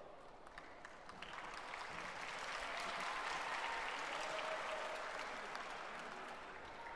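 Audience applauding. The clapping swells after about a second, is loudest near the middle and slowly tapers off.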